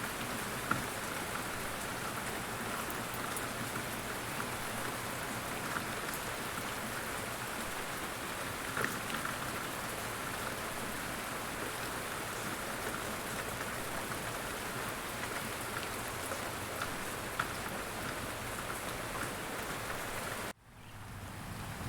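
Steady rain falling on a surface, an even hiss with a few louder individual drops now and then. It cuts off abruptly about a second before the end.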